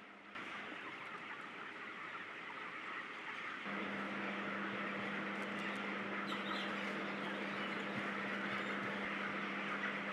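A large flock of broiler chickens calling all at once, a dense, even chatter. About four seconds in it gets louder and a steady low hum comes in under it.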